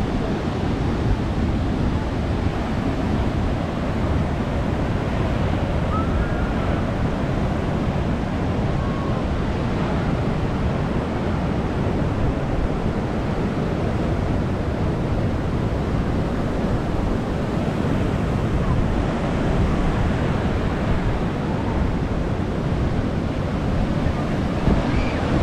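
Ocean surf washing steadily below the pier, a continuous rumbling hiss of breaking waves with wind on the microphone.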